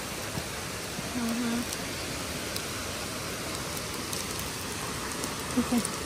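Steady rush of falling water, an even hiss with no rhythm, with a short hummed voice sound about a second in and another near the end.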